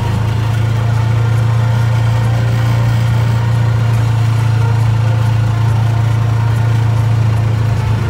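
Arctic Cat's engine running at a steady low hum while it drives through snow.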